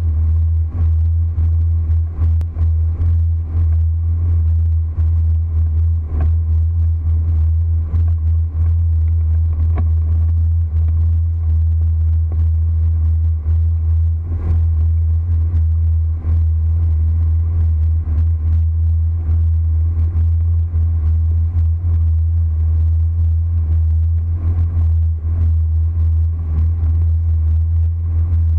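Boat's motor running steadily at high speed, a deep, loud drone, with irregular knocks as the hull slaps through the chop.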